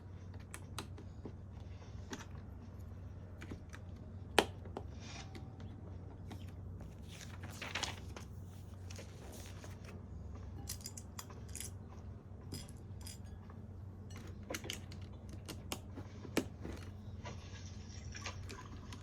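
Small plastic LEGO pieces being handled and pressed together: scattered light clicks and taps, with a sharper click about four seconds in and another around sixteen seconds. A brief rustle comes around eight seconds, over a steady low hum.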